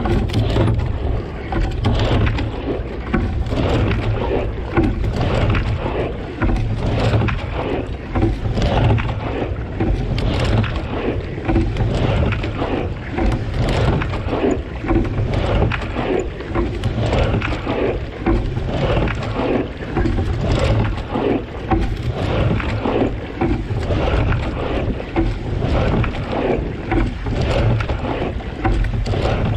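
Single racing scull being rowed hard: the oar blades splash in and out of the water with each stroke and water rushes along the hull, in a steady rhythm of roughly one stroke every two seconds.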